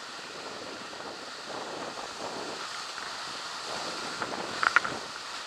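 Whitewater rapid rushing and churning around a raft running through it, heard as a steady noise of water. A couple of brief sharp sounds come about four and a half seconds in.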